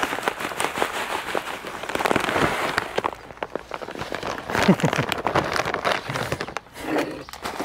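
Granular starter fertilizer pouring from a plastic bag onto potting soil, a dense crackling patter mixed with the bag crinkling; it thins to scattered rustles after about three seconds.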